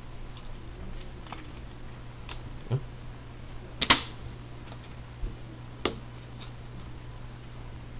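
Scattered light clicks and taps of baseball cards and a small plastic bag being handled and set down on a table, the sharpest a little before four seconds in, over a steady low hum.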